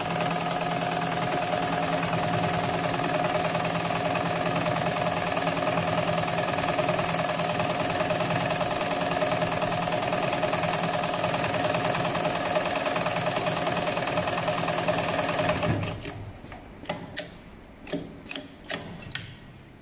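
HighTex 7273PLK heavy-duty programmable pattern sewing machine running steadily at speed, stitching through thick multi-ply synthetic webbing. It stops about three-quarters of the way through, followed by a handful of sharp clicks.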